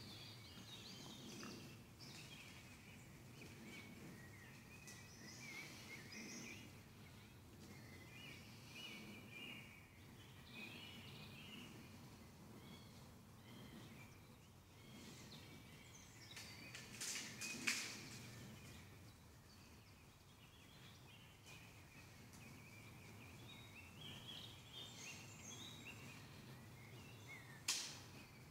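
Faint woodland birdsong: small birds chirping on and off at a low level. A brief crackle about two-thirds of the way through is the loudest moment, and a single sharp click comes near the end.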